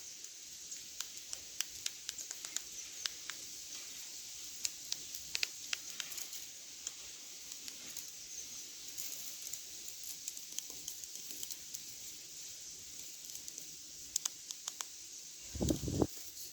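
A tit pecking and tapping at the camera from behind: quick, irregular light taps, with a heavier low thump near the end.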